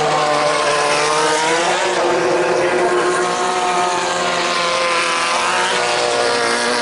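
Engines of 1600cc off-road race buggies, air-cooled VW flat-fours, running hard around the dirt track, their pitch rising and falling as they rev through the turns.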